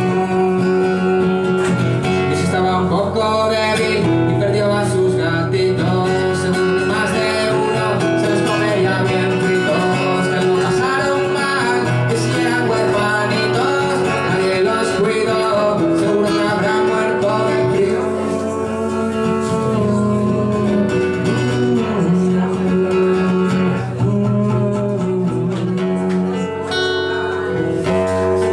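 Live solo acoustic guitar, strummed and picked, with a man singing over it.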